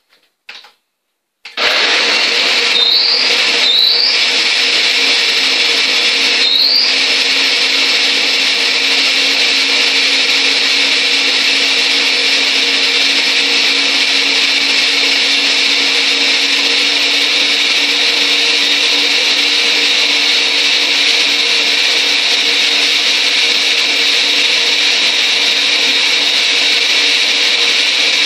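Countertop blender blending soaked almonds with water into almond milk: it starts about a second and a half in, dips briefly a few times in the first few seconds, then runs steadily and loudly.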